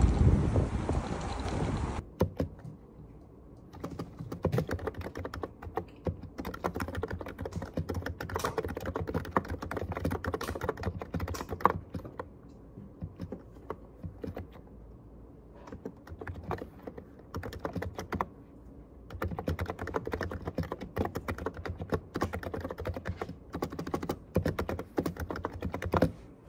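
Typing on a computer keyboard: quick runs of key clicks, thinning out briefly twice. The first two seconds hold steady outdoor noise before the typing starts.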